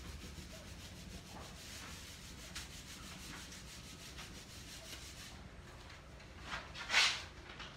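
Hands rubbing over the back of a painted sheet pressed face-down onto fabric to transfer a monotype print: a soft, steady rubbing with faint strokes. About seven seconds in comes a louder, brief rustle as the sheet is lifted off the cloth.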